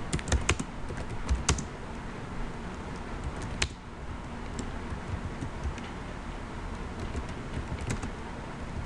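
Computer keyboard being typed on: irregular keystroke clicks in short bursts with pauses, a cluster near the start and another near the end, and one louder click about three and a half seconds in.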